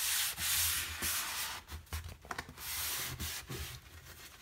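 A hand rubbing and pressing freshly glued sheet vinyl flooring down along the wall edge, a scratchy rubbing in two long spells, the first at the start and the second about two-thirds of the way through.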